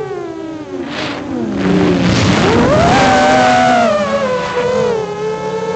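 FPV racing quadcopter's electric motors and propellers whining. The pitch sinks, then climbs sharply about two seconds in with a rush of air as the throttle goes up, and settles to a steady whine near the end.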